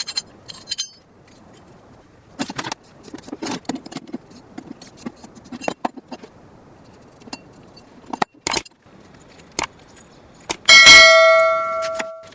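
Metal tools and parts handled on a workbench: scattered light taps and knocks, then near the end a loud metallic clang that rings on with several clear tones, fading over about a second and a half.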